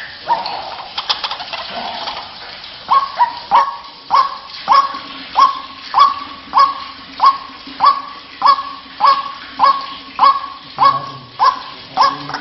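White-breasted waterhen calling, as played on a bird-lure recording. A couple of seconds of jumbled calls give way to a regular series of short, sharp notes that hook downward, about one and a half a second, over a faint steady hum.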